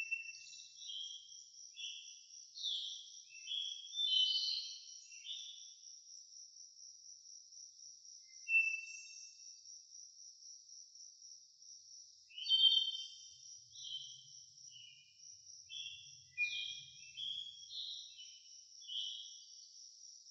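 Steady high trilling of insects, like crickets, with a songbird singing over it in two long runs of short whistled notes, one in the first few seconds and another from a little past the middle to near the end.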